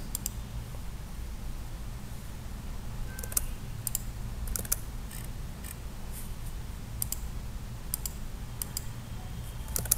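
Computer mouse clicking several times at irregular intervals, most of them from about three seconds in, over a steady low hum.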